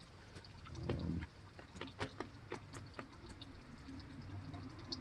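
Faint scattered clicks and rustling of gear being handled, with a brief low rumble about a second in.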